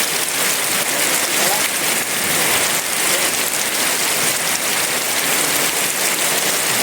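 Heavy rain falling steadily, a dense even hiss of drops with no thunder.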